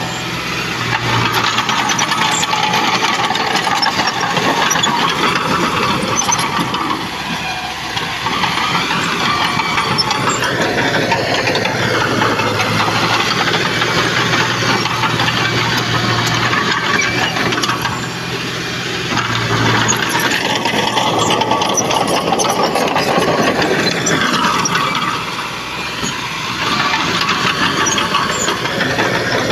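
Komatsu D31PX bulldozer's diesel engine running steadily under working load, with its level easing off briefly a few times.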